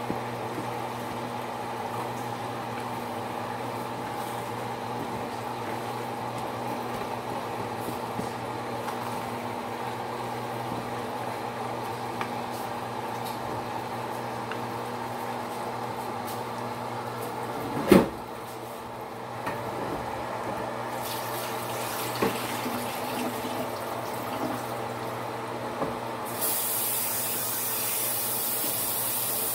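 A pan of rice simmering in its liquid, bubbling, over a steady hum. A single sharp knock comes about two-thirds of the way through, and a steady loud hiss sets in near the end.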